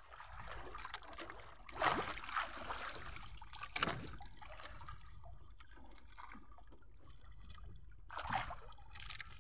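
Water splashing and trickling at the side of a small fishing boat with its engine off, with a few louder splashes.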